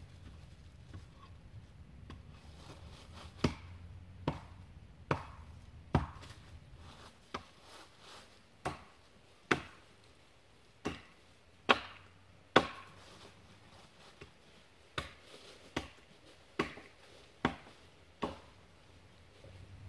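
Wood being struck repeatedly with a hand tool at the tree's trunk: about sixteen sharp blows, roughly one a second, starting a few seconds in.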